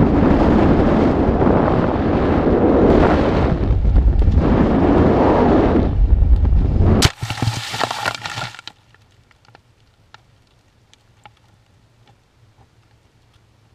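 Wind rushing over the microphone of a descending weather balloon payload, cut off about seven seconds in by the crash of the payload hitting the ground. A second or so of crackling and rustling follows as it settles in grass, then it is quiet apart from a few faint ticks.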